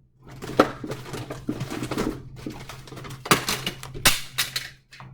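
Frozen food packages being handled and sorted: crinkling plastic wrapping and knocks, with several louder clacks, over a steady low hum.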